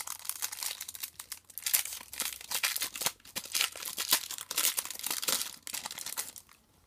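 Foil Match Attax trading-card packet torn open and crinkled in the hands, a dense run of crackling that dies away near the end.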